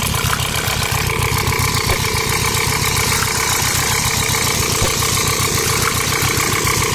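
An engine idling steadily, with a fast, even low throb and a few level whining tones above it.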